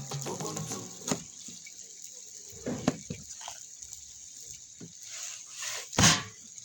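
The last sung word of a song dies away. Then come kitchen handling sounds: water splashing and a few short knocks, the loudest knock about six seconds in.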